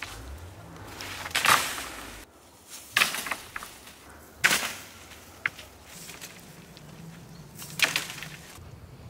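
A long wooden stick beating the leafy branches of a chestnut tree to knock the chestnuts down: four strikes, each a loud rustling swish of leaves and twigs, with a few small sharp knocks after some of them.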